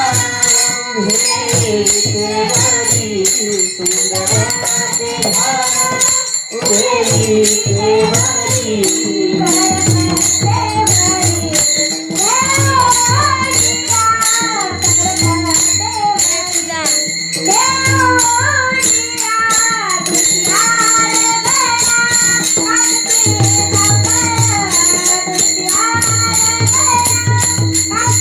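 Marathi devotional kirtan singing: a woman's voice leads a panchapadi melody over steady rhythmic drumming and jingling metallic percussion.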